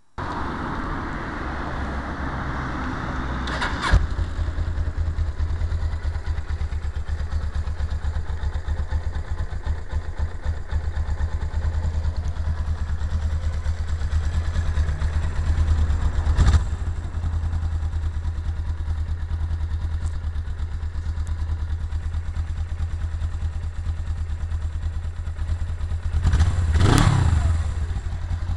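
1999 Suzuki GS500E's air-cooled parallel-twin engine running at idle with a steady low rumble. It gets two short blips, and a rev that rises and falls near the end.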